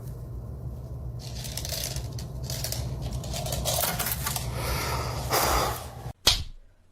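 Light metallic clattering and scraping over a steady low hum, with a sharp knock near the end.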